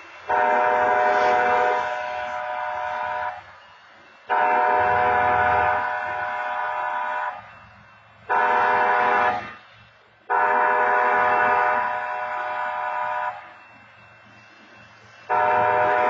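Train horn blasting a chord of several tones in the grade-crossing pattern: long, long, short, long, with another long blast starting near the end. Each blast is loudest for its first second or so and then carries on more faintly.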